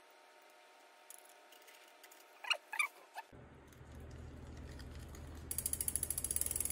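Two short squeaks, then a bicycle drivetrain turned by hand: the chain running over a Renthal 1XR chainring on a Shimano Deore crank, with the rear hub's freewheel ticking rapidly from about two-thirds of the way in.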